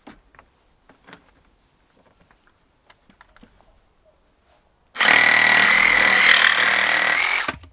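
DeWalt 18 V cordless reciprocating saw cutting through a PVC window frame, which is suspected to hold an aluminium insert. It starts about five seconds in, runs loud and steady with a high whine for about two and a half seconds, then stops suddenly. Faint handling clicks come before it.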